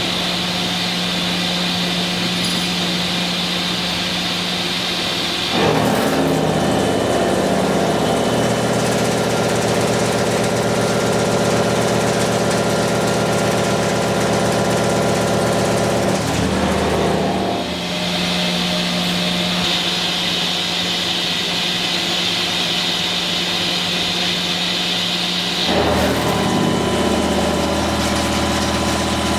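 Kitamura Bridgecenter-6G double-column machining center heavy face milling S50C steel with a 100 mm five-insert face mill at 955 rpm, 5 mm deep. The spindle runs with a steady hum and high hiss. About six seconds in the cutter takes the steel and the sound turns louder and denser, a steady multi-tone milling drone that eases off around 17 seconds and returns near 26 seconds.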